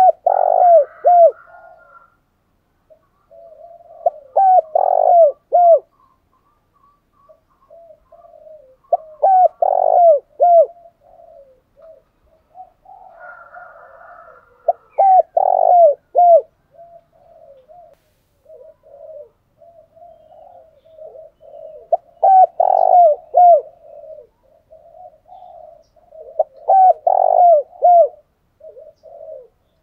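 Spotted dove cooing: repeated phrases of low, pulsing coos, coming in groups about every five or six seconds.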